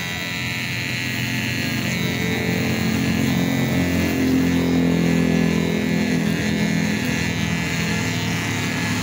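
Electric hair clippers buzzing steadily while trimming hair around the ear, the hum swelling a little around the middle.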